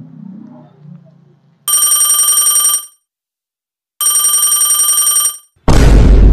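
Mobile phone ringing with a bell-style telephone ringtone: two trilling rings about a second long, with a pause between them. Near the end comes a loud, brief rushing noise.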